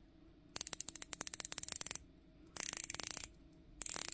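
Heritor Edgard dive watch's rotating bezel being turned by hand in three quick runs, each a rapid string of even ratcheting clicks with firm resistance and no sponginess.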